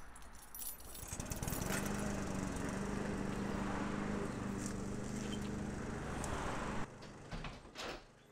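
A bunch of keys jingling and a key working a front-door lock, over a steady engine-like motor hum that cuts off abruptly about seven seconds in. A few sharp clicks from the door's lever handle and latch come near the end.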